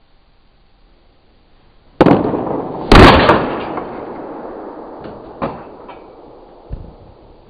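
Baseball bat hitting a ball off a batting tee in an indoor hitting cage: a sharp crack about two seconds in and a louder one about a second later, each ringing out in a long echo, then a few fainter knocks.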